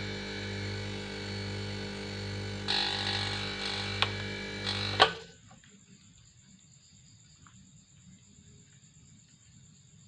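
Converted split air-conditioner compressor running with a steady electric hum and brief bursts of hiss, then stopping abruptly with a sharp click about halfway through; what follows is faint background.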